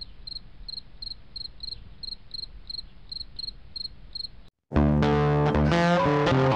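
A cricket chirps evenly, about three chirps a second, over a low hum. After a brief silence about four and a half seconds in, loud guitar music starts.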